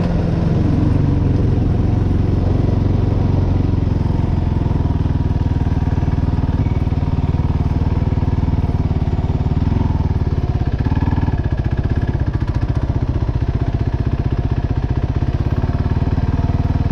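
Kawasaki KFX 450R ATV's single-cylinder four-stroke engine settling from higher revs to a steady idle, with a fast, even pulsing beat.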